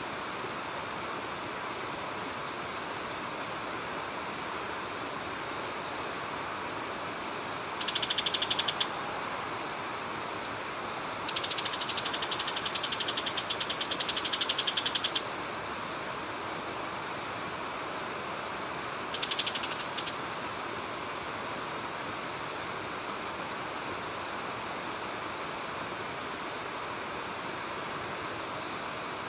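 Insects calling in three bursts of rapid, high-pitched pulsing: a short one, a longer one of about four seconds, then another short one. Beneath them, a steady rush of water running over a weir.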